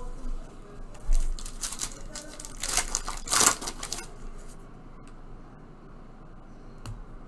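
Foil wrapper of a Panini basketball trading-card pack being torn open and crinkled in the hands, with a run of rustling tears loudest around three seconds in. After that the handling goes quieter, with a couple of faint clicks.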